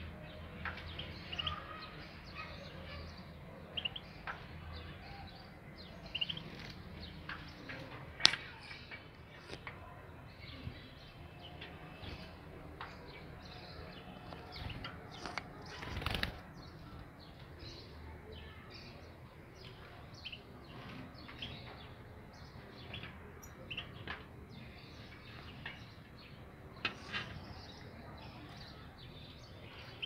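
Caged European goldfinches giving scattered short chirps, with wing flutters and a few sharp knocks, the loudest about eight seconds in and another about sixteen seconds in.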